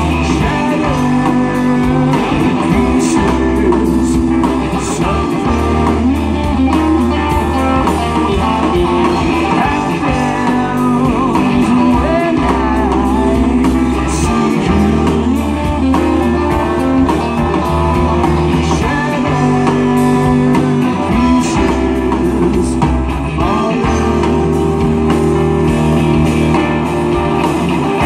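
Live band music played loud through a PA: electric guitars, keyboard and drum kit, with a bass guitar keeping a steady low pulse, in a blues-rock style.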